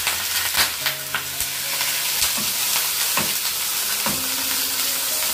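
Beefsteak frying in a pan of hot oil: a steady sizzle broken by sharp pops of spattering oil about once a second. The cook puts the spattering down to too much oil in the pan.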